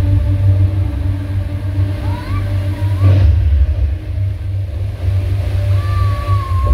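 Deep, steady rumble of a large fountain's water jets running, under a low steady hum that stops about three seconds in. A high voice-like tone rises briefly about two seconds in and again near the end.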